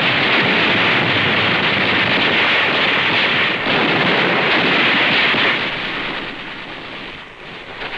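Continuous roar of battle noise on an old film soundtrack, a dense rushing din of gunfire and blasts with no single shot standing out, which fades away over the last two seconds.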